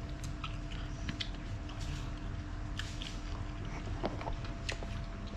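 A person chewing and biting food close to the microphone: scattered short mouth clicks and crunches over a faint steady hum.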